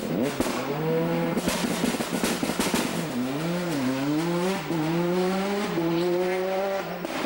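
World Rally Car's turbocharged four-cylinder engine pulling hard through the gears. Its pitch rises and drops back at each gear change, several times over.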